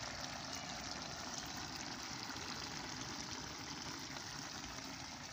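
Curry simmering in a karahi over the fire, a steady low hiss.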